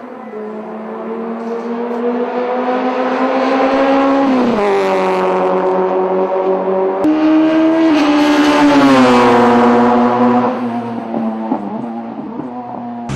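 Honda racing car engine accelerating hard through the gears. The engine note climbs steadily, drops at an upshift about four seconds in and again near eight seconds, then climbs again, growing louder and then fading after about ten seconds as the car passes.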